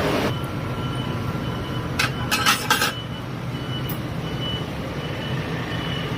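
A quick cluster of sharp metallic clinks about two seconds in, the kind made by tyre levers and tools against a motorcycle wheel rim during a tyre change, over a steady low hum.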